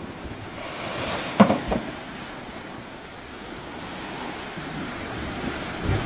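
Surf washing on a beach: an even rush that swells and ebbs. A short sharp thud comes about one and a half seconds in, with a smaller one just after.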